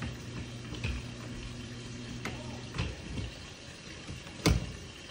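Handling clicks and knocks as a cat stroller's front wheel is worked back onto the stroller, with one sharp, loud click about four and a half seconds in. A low steady hum stops a little before three seconds in.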